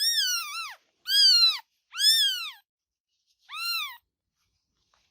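Kitten meowing: four high-pitched calls in quick succession, each rising then falling in pitch, the last one shorter and fainter.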